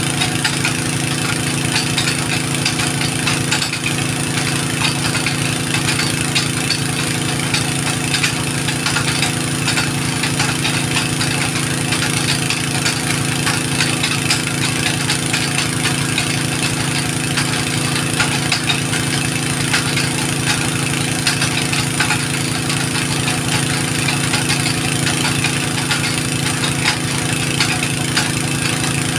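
An engine running steadily at one constant speed, with no change in pitch or level.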